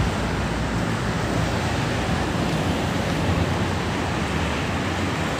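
Sandstorm wind blowing on a phone microphone, a steady rushing noise with a low rumble, mixed with cars passing on the road.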